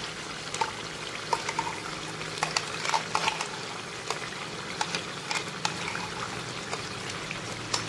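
Mutton gravy bubbling and sizzling in hot oil in a kadhai on high flame, with frequent small pops and crackles, as a thick cashew, almond and fried-onion paste is spooned into it.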